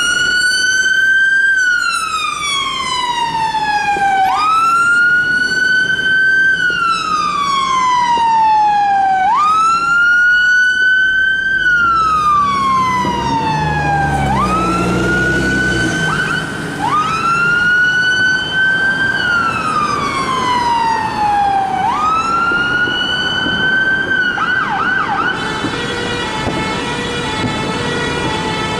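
Fire engine siren on wail: each cycle rises quickly and then falls slowly, repeating about every five seconds. Near the end it gives a few quick short whoops, then a steady horn tone takes over.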